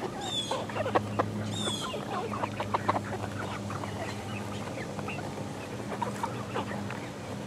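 A flock of eleven-week-old chickens clucking and peeping in many short, overlapping calls, with a steady low hum underneath.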